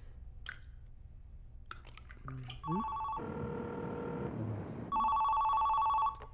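Mobile phone ringing with a warbling two-tone electronic ring: a short ring, then a longer, louder one about two seconds later that cuts off abruptly as the call is answered. Between the two rings there is a stretch of hissing noise with a faint steady tone.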